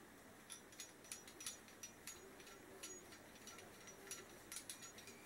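Faint, irregular clicks and light clinks of small steel parts of a brake caliper piston removal kit being handled, some with a brief metallic ring.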